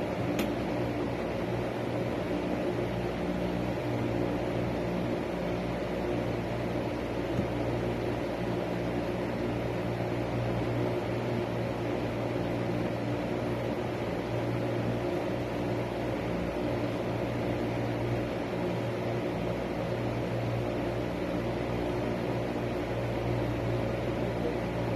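Electric fan running with a steady hum.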